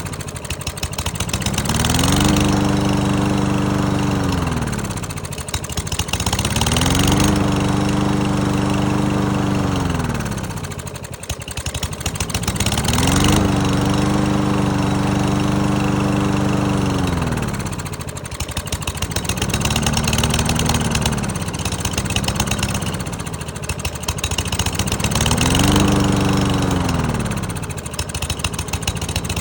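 Lawn-Boy lawn mower engine running while sunscreen is sprayed into its intake; its revs keep sagging and climbing back about every five or six seconds, the engine bogging on the spray and recovering, with a hiss of aerosol spray at times.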